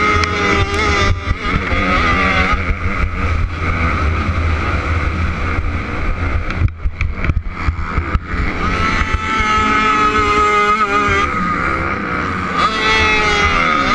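Dirt bike engine running hard in a motocross race, its pitch rising and falling as the throttle opens and closes. About seven seconds in the engine note drops away and breaks up for a second or two, then picks back up.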